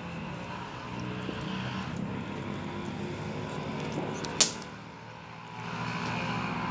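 A steady low engine drone that fades briefly and comes back, with one sharp click about four seconds in.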